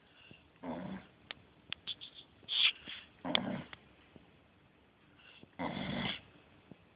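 Sleeping beagle snoring: three snores about two and a half seconds apart, with small clicks and a brief high squeak between the first two.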